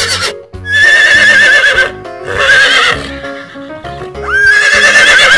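Horse whinnying three times, each a wavering, trembling neigh, over background music.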